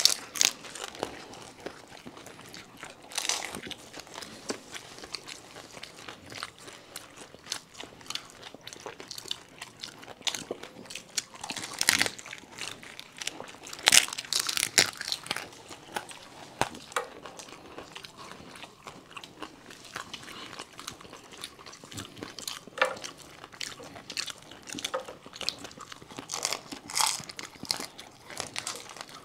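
People biting into and chewing crisp pani puri shells: irregular crunches and chewing, with a few sharper, louder cracks here and there.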